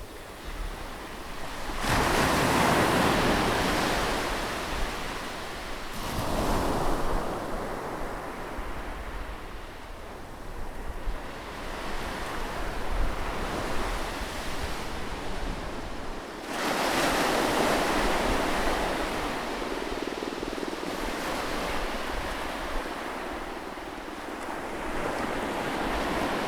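Sea waves breaking on a shore and washing back. Three big breakers land about 2, 6 and 16 seconds in, each followed by a long fading wash.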